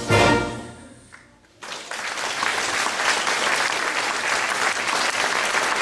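A concert wind band's closing brass chord rings out and dies away, and after a brief hush the audience breaks into steady applause about a second and a half in.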